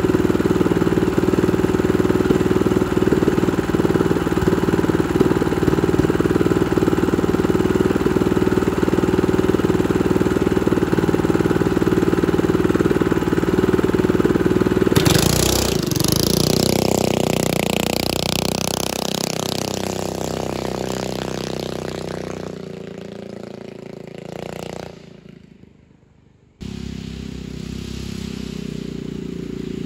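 Single-cylinder 196cc air-cooled diesel engine on a go-kart, idling steadily. About halfway through it revs as the kart pulls away, its pitch sliding and the sound fading with distance. After a short break it is heard faintly running far off.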